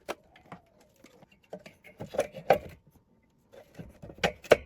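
Irregular light clicks and knocks from hands handling tools and parts on a workbench, in small clusters, with the sharpest knock near the end.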